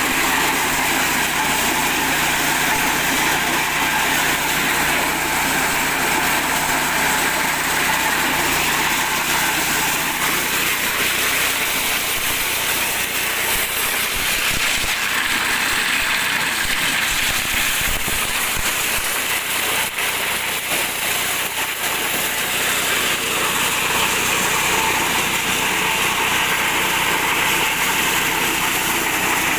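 8 hp petrol engine running steadily, driving a mini corn sheller, with a dense, continuous rattling clatter over the engine note.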